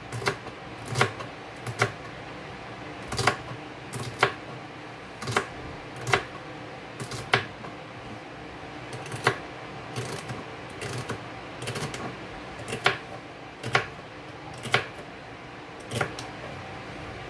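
Kitchen knife chopping fresh celery on a plastic cutting board: sharp single knocks of the blade on the board, about one a second at an uneven pace.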